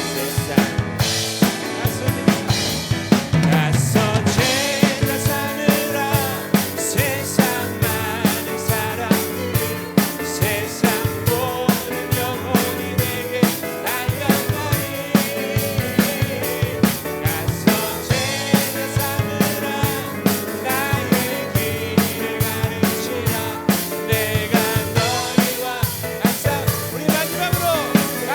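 Drum kit played on a steady beat, with bass drum, snare and cymbals, under a worship band's music.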